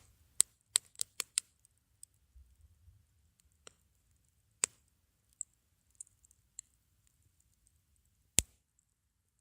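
Wood fire burning in a Coleman ball grill, crackling with sharp, irregular pops: a quick cluster of pops in the first second and a half, then scattered single pops, the loudest near the end.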